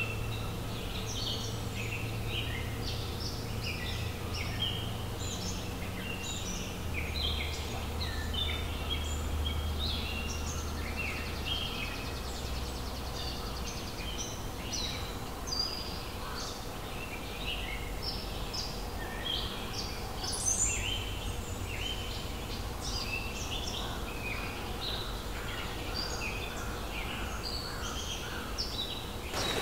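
Birds singing and chirping, many short calls and trills one after another, over a steady low background noise.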